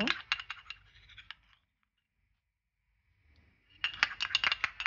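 Quick clicks and light taps of a tablespoon against a glass bowl as mayonnaise is added. They come in two short runs, the first at the start and the second near the end, with a silent gap between.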